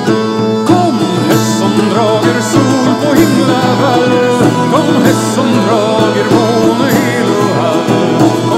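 Instrumental folk music: a Swedish bagpipe plays a wavering melody over its steady drone, backed by Irish bouzouki and a beat on frame drum and tambourine.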